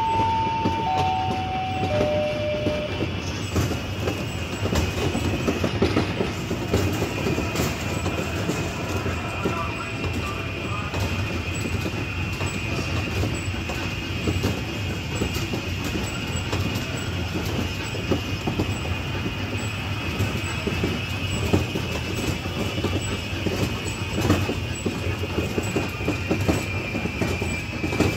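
Small tourist ride-on train running steadily, with a dense clatter and a steady high whine. It opens with a three-note falling chime.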